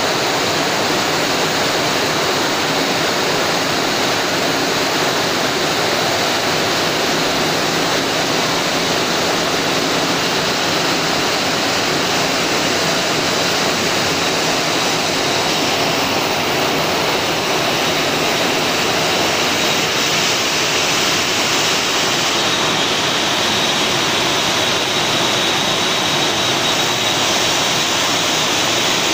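Steady, loud rush of running and spraying water from processing-line equipment, with a faint high whine joining about two-thirds of the way through.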